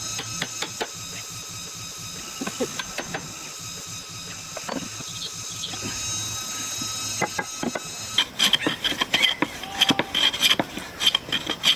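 A steady mechanical hum with scattered clicks, then from about eight seconds in, rapid rasping strokes of a tool scraping or sanding wood.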